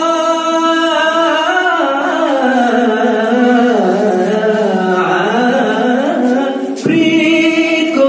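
A man singing a slow melody into a microphone, holding long notes that slide in pitch. The melody sinks through the middle, and near the end a new, louder phrase begins.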